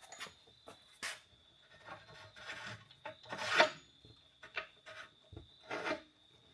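A long steel suspension bolt being pushed and wiggled through the lower wishbone's bushings and mounting brackets, metal scraping and rubbing in irregular strokes with a few sharp knocks, the loudest about three and a half seconds in.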